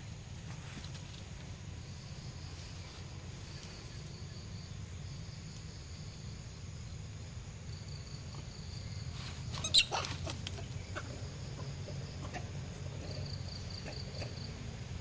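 Outdoor woodland ambience: faint high insect trills come and go over a steady low rumble. About ten seconds in there is one sharp, short sound, much louder than the rest.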